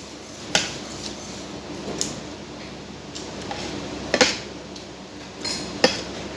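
Spoon and fork clinking against a plate or bowl during a meal of fish soup: about five separate sharp clinks, two of them close together near the middle.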